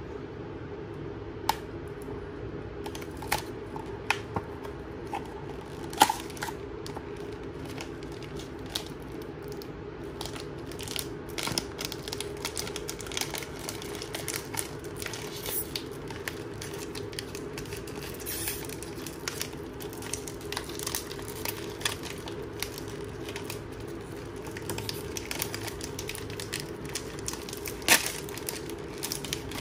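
Handling of a cardboard snack box and its foil-lined plastic pouch: crinkling and tearing as the pouch is pulled out and ripped open, with scattered sharp clicks and a few louder knocks of the box, over a steady low hum.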